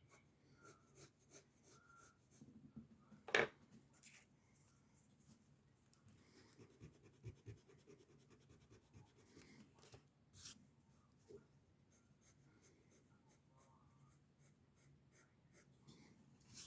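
Pencil scratching on paper in quick short sketching strokes, faint and fairly steady, with one sharp louder tap about three and a half seconds in.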